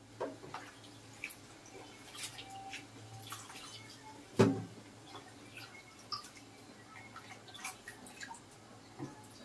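Wet chunks of chopped raw fish being handled and dropped into a plastic strainer basket over a sink bowl: scattered drips and light plastic clicks, with one louder knock about four and a half seconds in.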